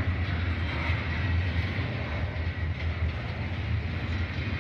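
Norfolk Southern double-stack intermodal freight train rolling past, its container cars' wheels making a steady deep rumble on the rails.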